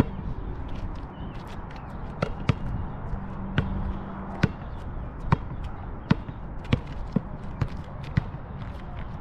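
Basketball bouncing on an outdoor asphalt court as it is dribbled, about nine sharp bounces at irregular spacing starting about two seconds in.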